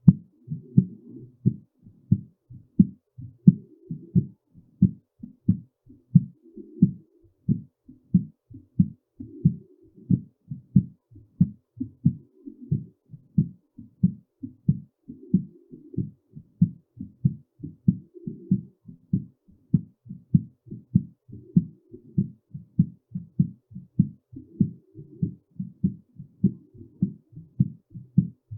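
Human heartbeat, a steady rhythm of low thumps with alternating stronger and weaker beats.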